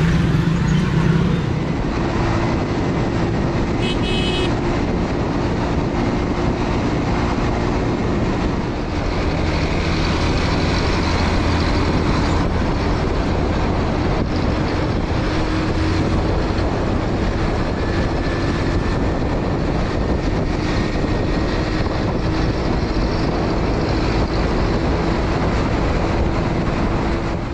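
Motorcycle running steadily at road speed, its engine hum under a broad rush of road and wind noise, heard by a rider on it. A brief high-pitched tone sounds about four seconds in.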